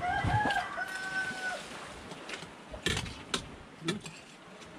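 A rooster crowing once: a few stepped notes and then a long held note. It is followed a second or so later by three sharp knocks.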